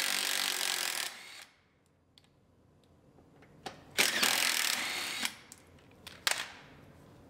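Cordless power driver with a socket extension running to back out the lower fender bolts. It runs in two bursts: one that stops about a second in, and another of about a second some four seconds in, followed by a couple of sharp clicks.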